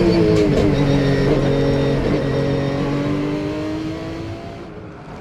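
Race car engine sound effect: the engine note drops in pitch in the first second, then holds steady, and it fades out over the last second or so.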